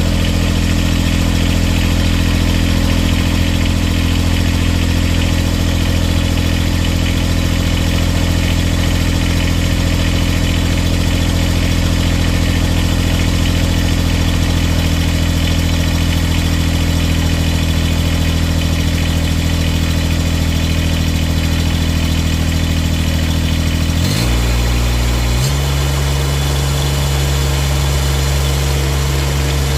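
Mini excavator engine running steadily to test a newly fitted one-wire alternator. About 24 seconds in, its speed falls and it settles at a lower, steady idle.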